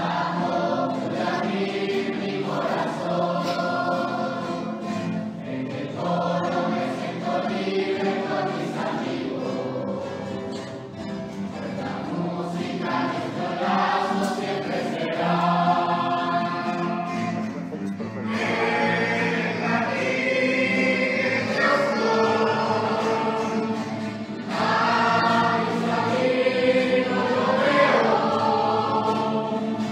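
Children's choir singing in unison phrases a few seconds long, accompanied by a youth string orchestra with violins, cellos and double basses. The music grows louder about halfway through.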